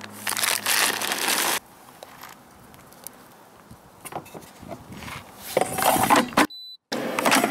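Plastic bag of chocolate chips crinkling as it is handled and poured, then small clicks of chips dropped onto pastry, and near the end a plastic clatter as the air fryer basket is pushed back into the fryer.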